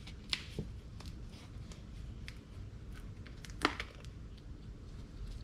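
Light, scattered clicks and taps of hands handling the oil bottle and engine parts during an oil fill, with one sharper knock about two-thirds of the way through, over a faint low hum.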